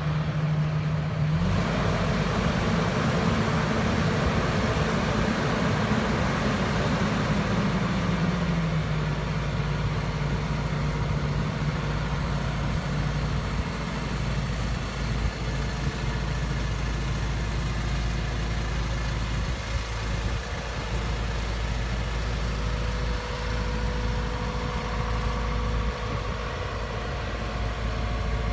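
JCB JS220LC twenty-ton excavator's diesel engine running steadily; its note drops and it gets a little quieter about halfway through.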